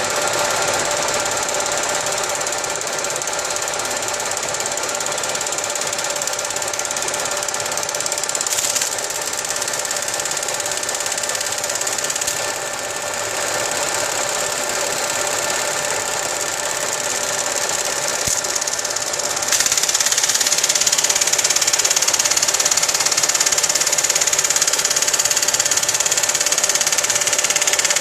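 Lathe running steadily while cutting into a phone, with a high hissing cutting noise over the motor's hum; it gets louder about two-thirds of the way through.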